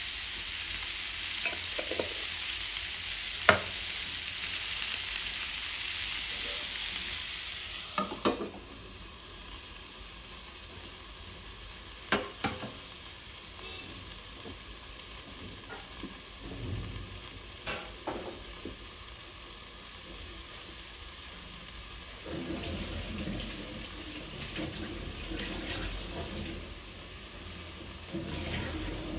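Broccoli and red onion sizzling in an open frying pan as they are stirred, with a sharp click a few seconds in. About 8 s in a metal lid clanks down onto the pan, and the sizzle goes on much quieter and muffled under it, with a few clicks and a duller noise rising near the end.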